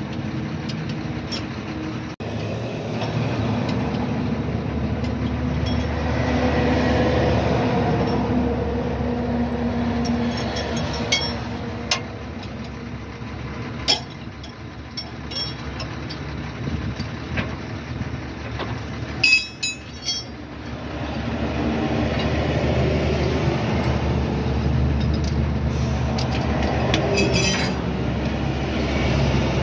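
Spanners clinking on the steel U-bolts and hanger of a lorry's rear leaf-spring suspension as a broken main leaf spring is taken off: scattered sharp metal clinks, with a quick run of them about two-thirds through. Under them, a steady rumble of road traffic that swells and fades twice.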